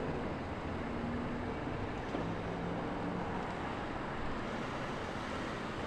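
Steady rushing outdoor background noise, with a few faint, brief low hums.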